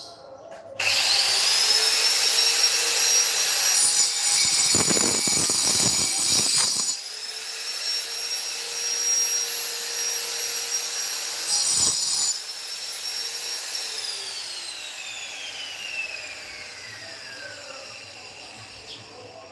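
A handheld electric disc cutter spins up to a high whine, then cuts under heavy load for about three seconds. It runs free, bites briefly again, and is switched off, winding down with a long falling whine.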